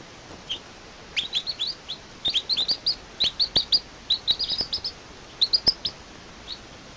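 Baby birds chirping in quick runs of short, rising, high-pitched cheeps, with a few pauses between runs.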